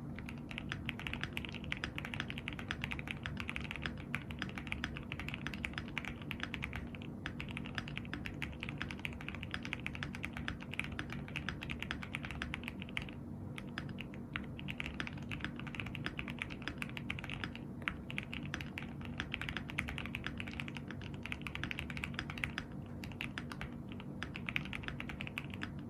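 Fast, continuous typing on an MWStudio MW65-Q gasket-mount mechanical keyboard with an aluminum plate and Gateron Pro Milky Yellow linear switches lubed with 205g0, a dense run of key clacks with a few short pauses.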